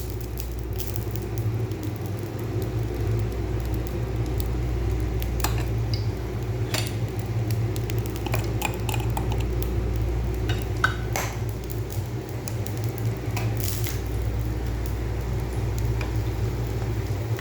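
A metal utensil clinks and scrapes against a cooking pan now and then as food is stirred, over a steady low hum.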